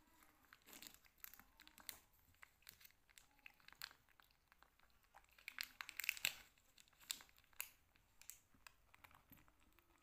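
Faint crinkling and crackling of a plastic fruit-jelly pouch as a baby macaque holds it to its mouth and eats from it, in irregular small crackles with the loudest cluster about six seconds in.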